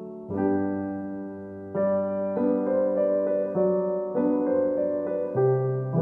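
Background solo piano music: a slow piece of held notes and chords, changing every second or so.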